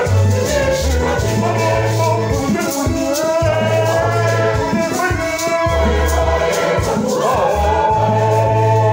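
A church choir singing a hymn in parts, a lead voice on a microphone over it, accompanied by an electronic organ holding long bass notes and a shaker keeping a steady rhythm.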